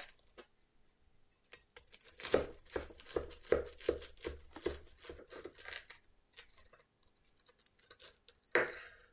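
Knife sawing through the crisp panko crust of a freshly fried pork cutlet: a quick run of crackling crunches, about three a second, then one loud crunch near the end.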